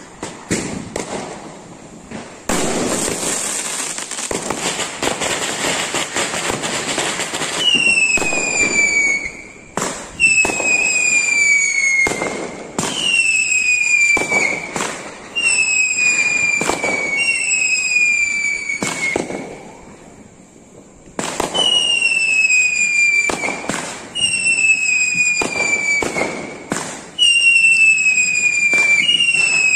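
Whistling fireworks: a run of about nine shots, each a sharp pop followed by a whistle that falls in pitch, roughly every two seconds. Before them, from about two to seven seconds in, a steady hiss of a burning firework.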